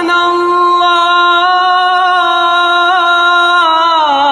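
A young man's voice in melodic Quran recitation, holding one long drawn-out vowel on a steady pitch, then sliding down with small ornamental turns near the end.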